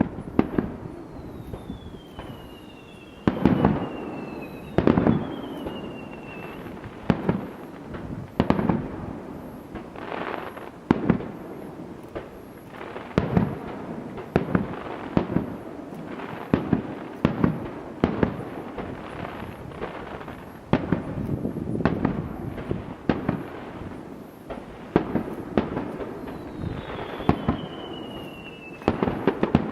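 Fireworks display: aerial shells bursting in irregular succession, about one bang a second, with echoing tails. A few high whistles fall in pitch among the bursts near the start and again near the end.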